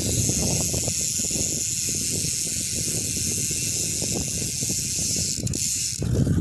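GUB bicycle rear hub with a stainless pawl spring buzzing steadily as the wheel freewheels. The pawls ratchet so fast they make one continuous hiss-like buzz, which cuts off suddenly about six seconds in.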